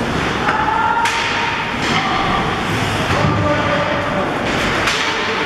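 Ice hockey rink during play: a steady din of arena noise with faint distant voices, broken by a few sharp knocks from the play on the ice, about a second in, near two seconds and again near five seconds.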